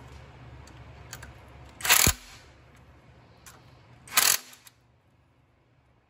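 Cordless impact wrench running in two short bursts about two seconds apart, tightening one bolt on each camshaft sprocket of a 3.2 diesel's timing chain to lock the sprockets in place. Faint clicks of the socket on the bolts come between the bursts.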